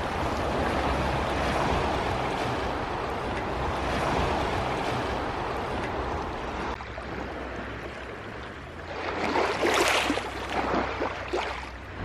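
Small waves lapping at the lake shore, with wind rumbling on the microphone over the first part. A few louder splashing washes come near the end.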